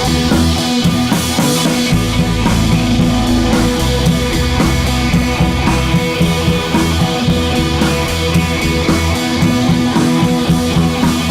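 Background rock music with electric guitar and drums, loud and steady with a regular beat.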